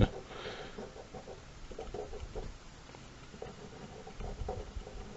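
Drawing tool scratching on paper in short, quick, irregular sketching strokes.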